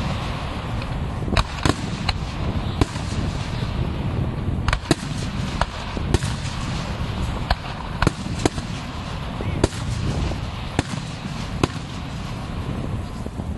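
Fireworks display: aerial shells bursting in an irregular run of sharp bangs, sometimes several in a second, over a steady low rumble.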